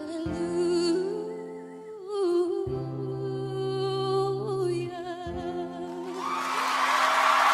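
A woman singing long held notes with vibrato over sustained acoustic guitar chords, closing a slow ballad. About six seconds in, audience applause and cheering swell up and become the loudest sound.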